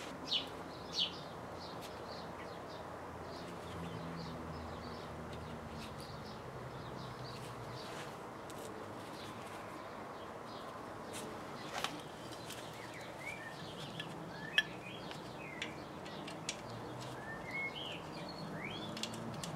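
Small birds chirping in short calls over a faint, steady outdoor hum, with a few light clicks of parts being handled on the engine.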